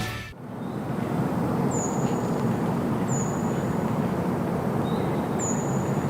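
Steady outdoor background rumble with a small bird's high, thin call repeated four times, about every second and a half; a short music sting cuts off at the very start.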